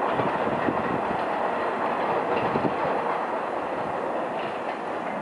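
Staten Island Railway R44 train approaching on the rails: a steady rumble of wheels on track, with a few faint clicks.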